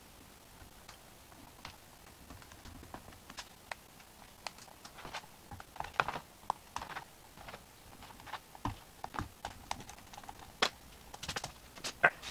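Irregular small clicks and scratching of a hand tool picking and scraping at a small hole in a rigid sign board, enlarging it by hand. A couple of sharper knocks near the end come as the sign is handled.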